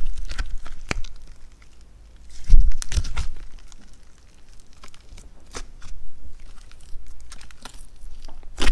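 Thick purple slime with clay mixed in being stretched, folded and pressed by hand, giving off small crackles and pops as trapped air bursts. A louder, fuller squish comes about two and a half seconds in.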